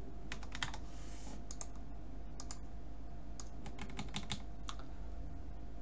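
Computer keyboard typing in short clusters of a few keystrokes at a time, over a steady low hum.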